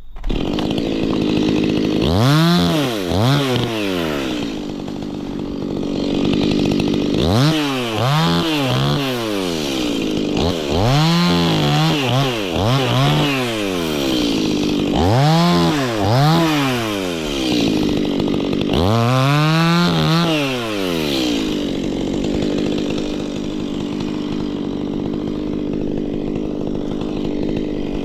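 Two-stroke chainsaw running at idle and revved up and back down about five times, each rev lasting a second or two, then left idling for the last several seconds.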